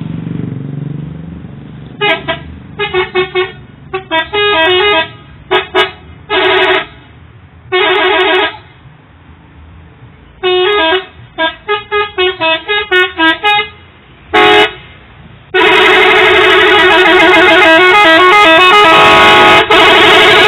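Bus telolet horn, a set of switched multi-tone air horns, playing quick changing notes: a string of short melodic honks for the first dozen seconds or so, then an unbroken run of the tune from about fifteen seconds in.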